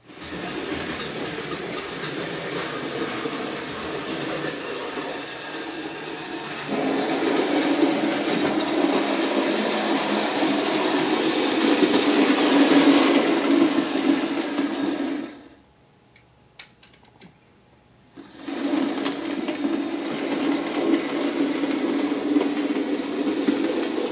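Bachmann OO gauge model locomotive running on model track: its small electric motor whirring with the wheels rattling over the rails. It gets louder about a third of the way in, stops suddenly just past the middle, and starts running again about three seconds later.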